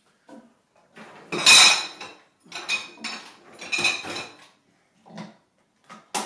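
Dishes and cutlery clinking and clattering as they are handled in a dishwasher's lower rack: several irregular clatters, the loudest about a second and a half in, with a knock and a sharp click near the end.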